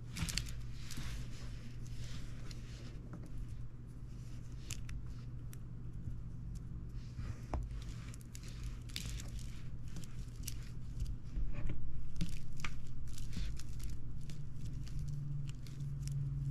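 Plastic coil springs handled on a wooden table: scattered light clicks and short scrapes at an uneven pace.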